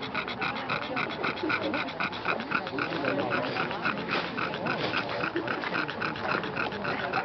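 A dog panting fast and steadily, about five or six breaths a second.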